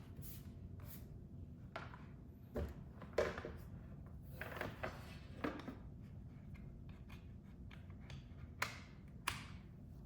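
Scattered handling clicks and knocks of USB cables being plugged into a laptop's ports, the sharpest about three seconds in and two more near the end, over a low steady hum.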